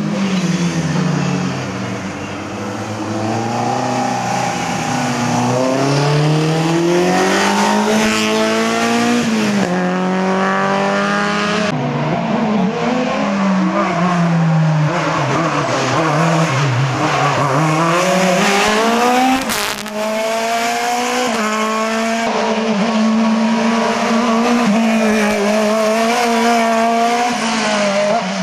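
Race car engines revving and accelerating hard, the pitch climbing through the revs and dropping back at gear changes several times, then settling to a steadier low-pitched engine hum near the end.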